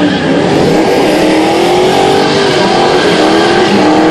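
A car engine revving hard and held at high revs during a burnout, its pitch slowly wavering, over the rush of spinning tyres.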